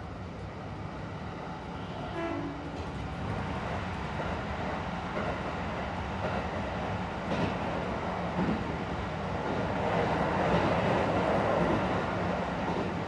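Running sound inside a Kintetsu 1620 series electric train car (motor car Mo 1624) under way: a steady low motor and gear hum over wheel-and-rail rumble, growing louder toward the end, with a few sharp clicks from the track.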